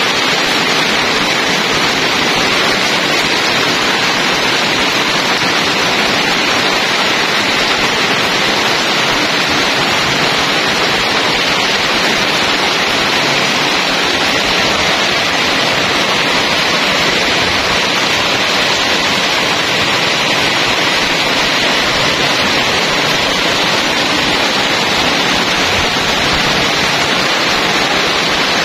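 Heavy rain pouring steadily onto corrugated metal roofs: a loud, even hiss with no let-up.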